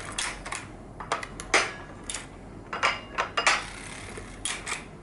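Harrison semi-automatic sock knitting machine being hand-cranked back and forth while knitting a heel: its latch needles and cams clatter in irregular groups of sharp metallic clicks, a few ringing briefly.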